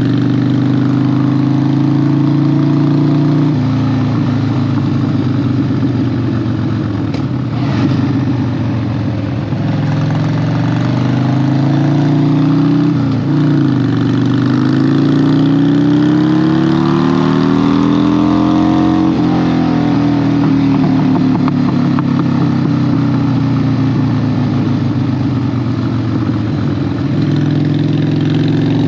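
Harley-Davidson 1200 V-twin motorcycle engine under way, its note changing with the throttle. The note runs steady at first, dips sharply about halfway through, climbs for several seconds as the bike accelerates, then falls slowly back to a steady note, with wind and road noise underneath.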